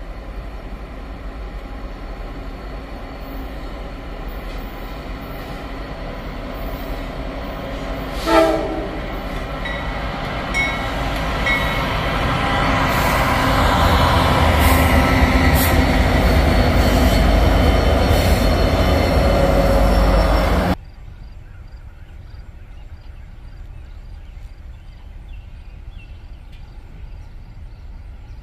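Diesel-electric freight locomotives of a tanker train approaching and passing close by, growing steadily louder, with a short horn blast about eight seconds in. The engine and wheel noise is loudest two-thirds of the way through, then cuts off abruptly to a much quieter, steady distant sound.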